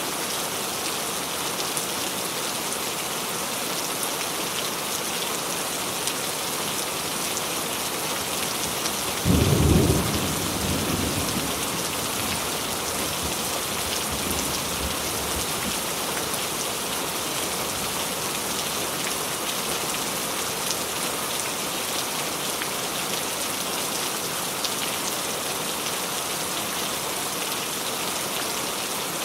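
Steady heavy rain falling, with one sudden clap of thunder about a third of the way in that rumbles and fades over a few seconds.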